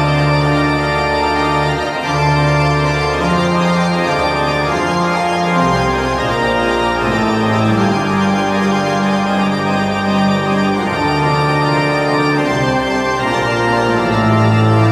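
Pipe organ playing sustained chords over a bass line that moves to a new note every second or so.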